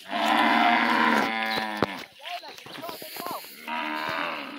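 Cattle mooing: one long, loud moo lasting about two seconds, then a second, shorter moo near the end.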